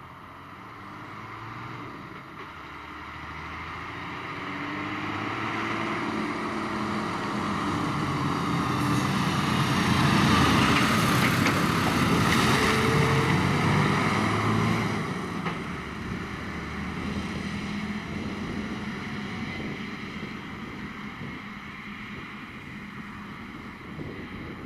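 Fire engine driving past: its diesel engine and tyres grow steadily louder as it approaches, are loudest about ten to fourteen seconds in as it passes close by, then drop away sharply as it drives off, with some wind noise on the microphone.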